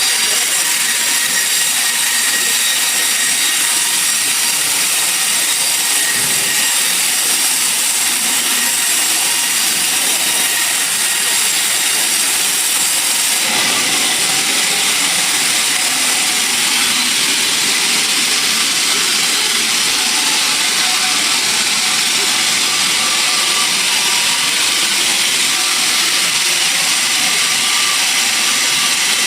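Sawmill machinery running: a loud, steady hiss with thin high whining tones. The sound shifts slightly about halfway through.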